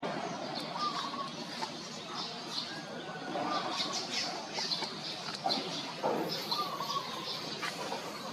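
Animal calls outdoors: many short, high chirps and squeaks repeating over a steady hiss, with a few higher-pitched squeals mixed in.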